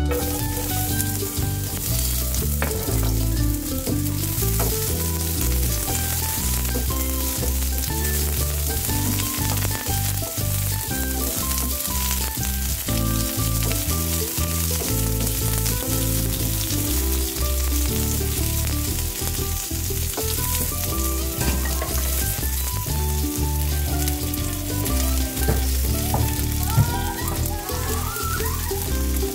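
Sliced onions sizzling in hot oil in a frying pan, tipped in as the sound begins and stirred with a slotted spatula near the end, with background music underneath.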